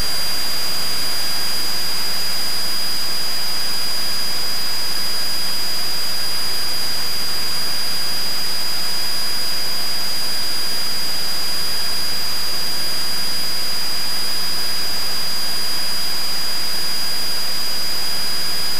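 Steady cockpit drone of a Cessna 172 cruising with engine and propeller at constant power: an even hiss of engine and airflow over a low hum, with a thin steady high whine on top.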